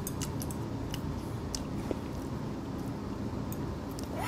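A person chewing a mouthful of raw seafood wrapped in seaweed, with small wet mouth clicks scattered through, over a steady low room hum.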